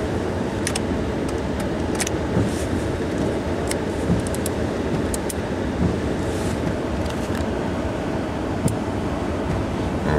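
Chevy Silverado 2500 pickup engine running steadily, heard from inside the cab, with a few scattered sharp clicks over it.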